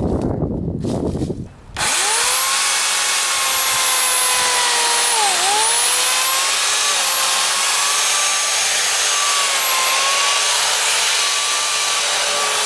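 Electric chainsaw motor started on a test run: it kicks in about two seconds in and runs with a loud, steady, high-pitched whine, its pitch dipping briefly once a few seconds later before recovering.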